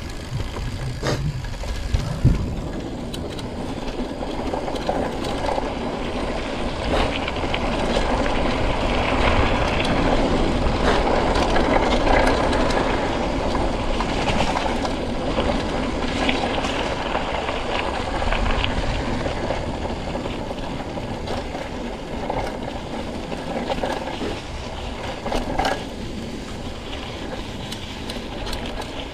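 Mountain bike ridden over a bumpy dirt trail: steady tyre noise with the bike rattling and clattering, and sharp knocks as it hits bumps. Two hard knocks come about one and two seconds in, and the noise is loudest in the middle.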